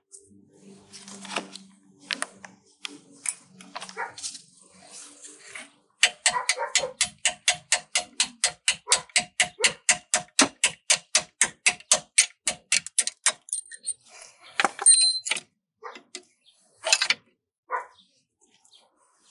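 Rapid light hammer taps on a punch, about five a second for several seconds, driving the pad retaining pin out of a front brake caliper, with scattered knocks before and a few louder single strikes near the end.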